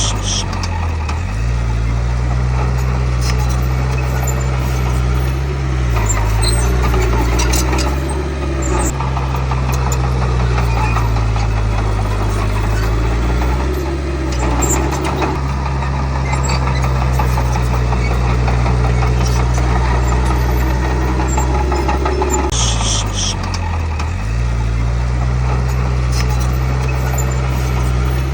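Komatsu D31P bulldozer's diesel engine running steadily under load, its speed dipping and recovering several times. Brief high metallic squeaks come through near the start and again about three-quarters of the way through.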